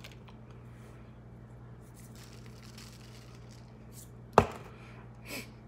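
A single sharp knock about four seconds in, like a hard object set down on a table, over a faint steady low hum, with a softer short sound a second later.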